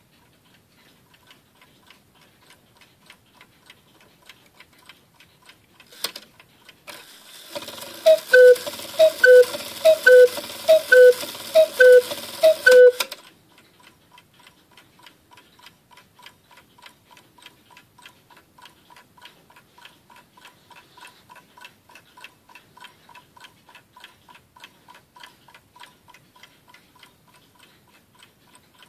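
G.H.S. table cuckoo clock calling cuckoo six times, each call a two-note pair from its bellows and pipes, about a second apart, after a click. Its pendulum movement ticks steadily before and after the calls.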